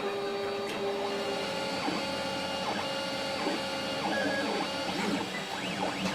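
Yan 3D printer's stepper motors whining during a print, the pitch jumping to a new steady tone with each move of the print head, with quick rising-and-falling sweeps near the end.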